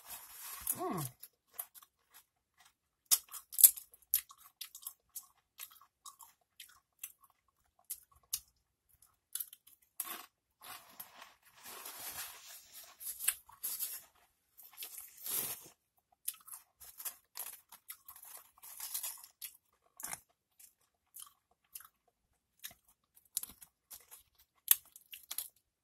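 Doritos tortilla chips dipped in Rotel cheese dip being bitten and chewed: irregular crisp crunches and chewing, with one sharp crunch standing out a few seconds in.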